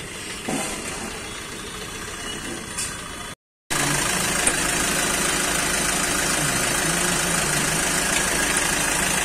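A vehicle's engine idling steadily with a low drone, heard from underneath the vehicle; it starts after a cut about three and a half seconds in. Before the cut there is only a quieter open-air background.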